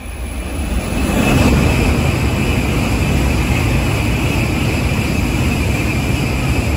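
N700-series Shinkansen bullet train passing through a station at high speed without stopping: a loud rush of air and wheel noise that swells over the first second or so, then holds steady as the long train streams past.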